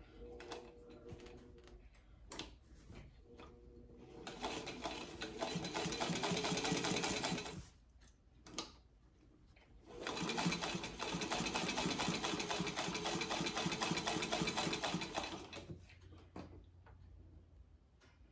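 Singer Model 15 sewing machine stitching through fabric at speed in two runs, one from about four seconds in until nearly eight seconds, and another from about ten seconds in until about sixteen. A few light clicks come before the first run.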